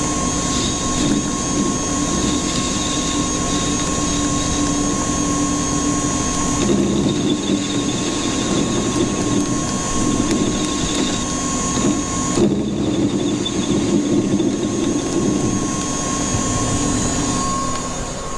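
Warco metal lathe running steadily, a mechanical hum with a constant high whine. The sound changes abruptly twice, about a third and two thirds of the way through.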